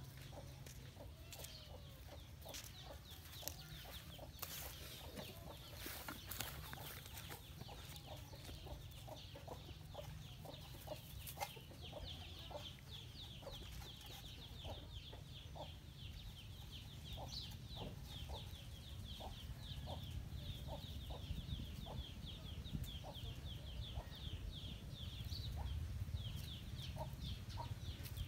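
Chickens clucking, with short calls scattered through and a rapid high chirping that keeps up throughout, over a low rumble.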